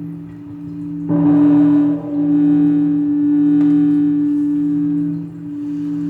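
Large temple bell struck about a second in, its bright partials fading over the following seconds. Under them a deep hum rings on with a slow waver.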